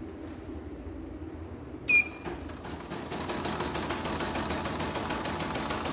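CNY portable computerized embroidery machine gives a short beep about two seconds in, then starts stitching: a fast, even mechanical clatter of the needle and hoop drive that runs on steadily.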